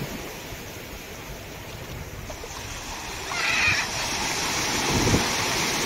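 Sea waves breaking and surf washing over the shallows, growing louder about three seconds in.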